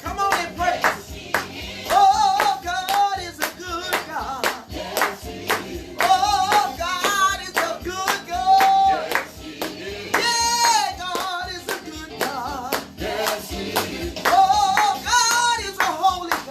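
Gospel song: a singing voice over music, with sharp hand claps on the beat about twice a second.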